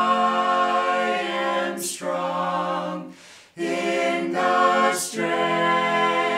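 Mixed voices of men, women and children singing a cappella in harmony, holding long chords, with a brief break for breath a little past halfway.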